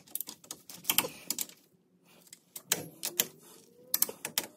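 Ratchet of a torque wrench clicking in short bursts of quick clicks as a Dana 44 differential bearing-cap bolt is tightened toward 80 ft-lb.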